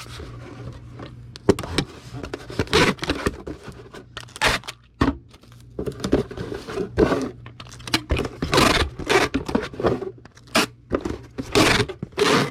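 Cardboard shipping box and packing materials being handled on a table: irregular scrapes, rustles and soft knocks, busier in the second half, over a faint steady hum.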